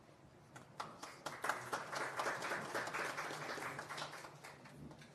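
Audience applauding: a few scattered claps at first, thickening into steady applause after about a second and a half, then dying away near the end.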